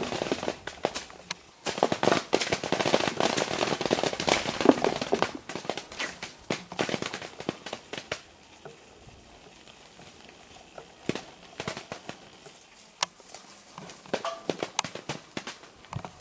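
Cherry plum tree being shaken: a dense patter of falling plums and rustling leaves for the first five or six seconds, then scattered single plums dropping with sharp taps.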